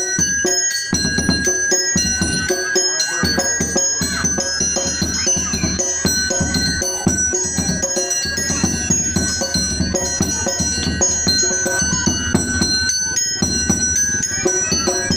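Music: a quick melody of short, bell-like notes on mallet percussion over fast, steady drumming.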